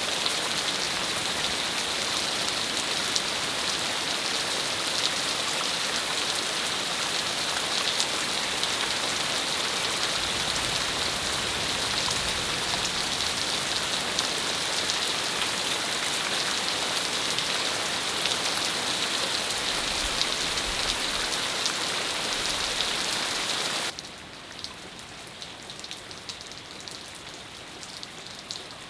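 Heavy rain falling steadily, dense with small sharp ticks of drops striking. About 24 seconds in it drops suddenly to a lighter, quieter rain.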